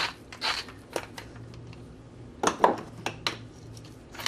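Salt shaken from a shaker over a stainless steel mixing bowl in a few short shakes, then a louder clatter and a few light clicks as the containers are handled, about two and a half seconds in.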